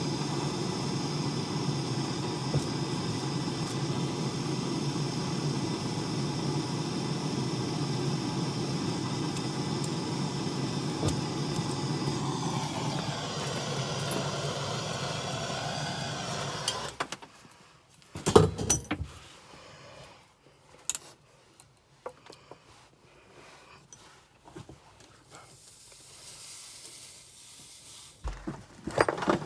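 A motor-driven machine runs steadily, then winds down and stops about two-thirds of the way through. A few knocks and clicks follow.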